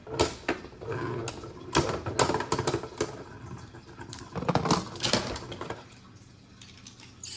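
Sharp plastic clicks and clatters of Beyblade tops and launchers being handled, with irregular clicks through the first five seconds and then near quiet.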